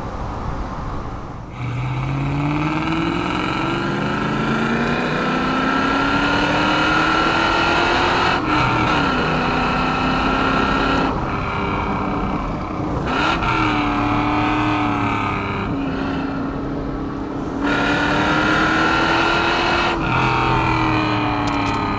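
Rover SD1 Vitesse's 3.5-litre V8 pulling hard, its note climbing with the revs and dropping back at gear changes several times, over wind and tyre noise.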